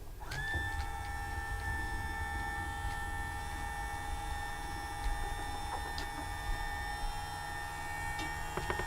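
Electric motor of a Coop Auto Door automatic chicken coop door running steadily as the door travels, a level whine that starts about a quarter second in. The door is moving without binding. A few faint clicks come near the end.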